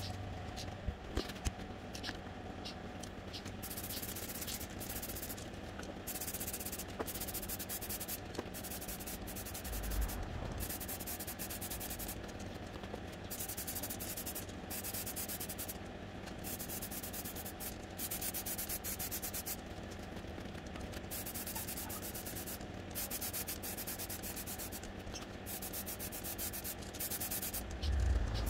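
Aerosol spray-paint can hissing in repeated bursts of one to three seconds with short pauses between, coating an alloy wheel rim. There is a low thump about ten seconds in and another near the end.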